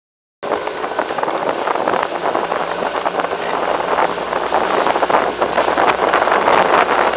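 Motorboat under way: wind buffeting the microphone over the steady rush of water and the motor's drone. It starts abruptly about half a second in, out of silence.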